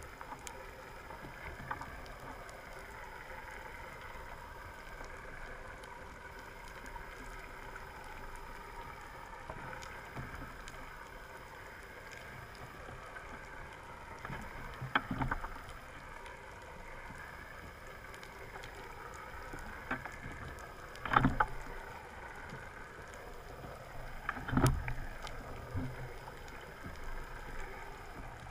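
Underwater ambience picked up through a camera housing: a steady, wavering drone and hiss. A few short, louder bursts of noise come in the second half.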